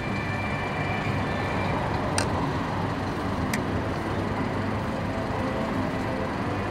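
Steady rumble of road traffic, with two sharp clicks a little over a second apart.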